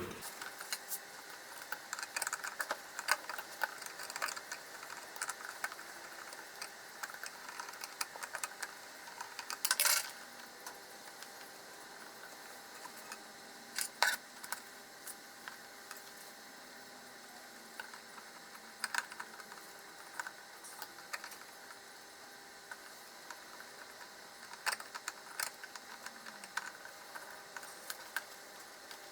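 Sparse small clicks and taps of hand wiring work: DC supply wires being fitted and fastened into the terminals of CNC motor drivers, with a few louder knocks now and then.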